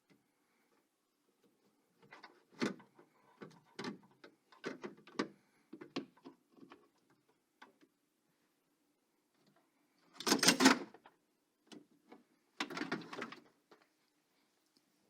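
A run of light clicks and knocks, then two louder rasping noises about a second long each, from hands and tools working on a car door and its window regulator parts.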